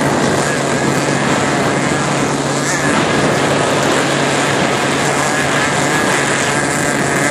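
Steady drone of a motorboat running at speed, a constant low engine hum under a loud rush of wind and water.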